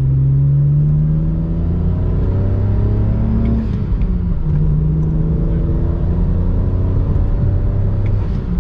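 BMW N54 3.0-litre twin-turbo inline-six accelerating hard, heard from inside the car: the revs climb, drop at a gear change about three and a half seconds in, climb again, and drop at another shift near the end. It sounds like a little jet plane as the turbos spool.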